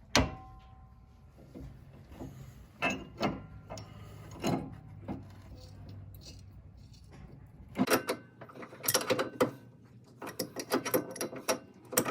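Metal parts and hand tools clinking and clicking during tie rod work: a sharp metallic clink with a brief ring right at the start, a few scattered knocks, then quick runs of rattling clicks over the last four seconds.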